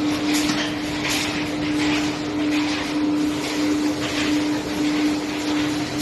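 Centrifugal blower fans of a fibre-processing line running steadily: a constant hum under a rush of air, with the hiss swelling and easing irregularly.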